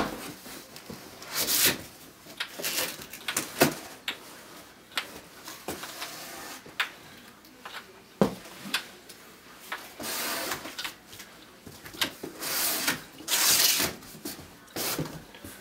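Sharp wooden clacks of a kendama ball landing on the cups and spike, scattered irregularly, mixed with bursts of rustling and scraping from a box being unpacked, loudest near the end.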